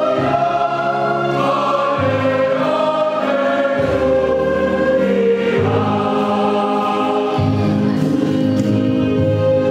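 Choir singing in several parts together, holding sustained chords that change every second or two.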